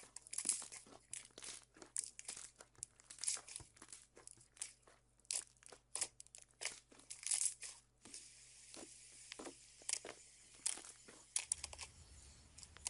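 Slime being squeezed and worked by hand, giving quick, irregular crackling clicks and pops.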